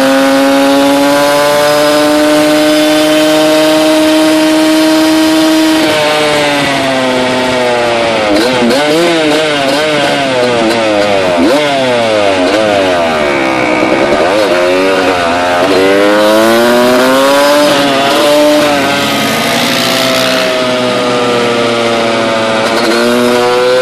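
Quad's Honda CR250 two-stroke engine running at high revs, held steady for the first several seconds. The pitch then rises and falls over and over as the throttle is worked, and it settles into a steady pitch again near the end.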